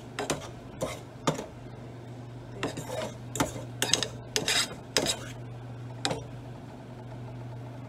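Metal utensils clinking and scraping against pots and dishes, a dozen or so sharp knocks over the first six seconds, over a steady low hum.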